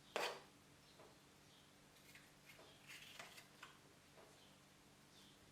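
Near silence with a single knock just after the start, then a few faint scattered taps and clicks of kitchen items being handled during food prep.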